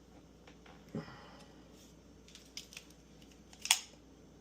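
A few short, sharp plastic clicks and knocks from handling the Milwaukee M12 die grinder and its battery pack, the loudest near the end.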